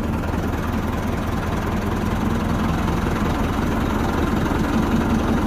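Farm tractor's diesel engine running steadily as the tractor is driven slowly.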